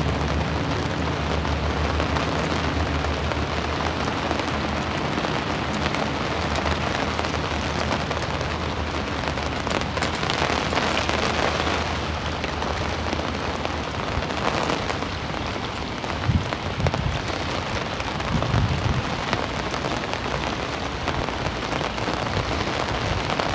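Steady rain falling on a fishing umbrella's canopy overhead and on the lake, an even hiss of drops. A few low thuds come about two-thirds of the way through.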